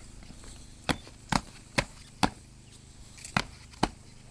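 Military boots striking a tiled floor as soldiers march in step and come to a halt: four sharp footfalls about half a second apart, a pause of about a second, then two more.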